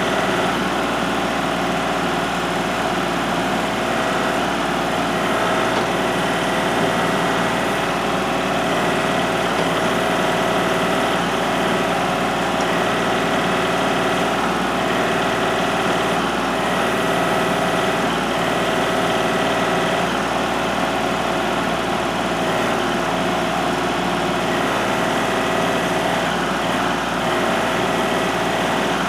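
Kubota L3301 HST tractor's three-cylinder diesel engine running steadily at a constant speed.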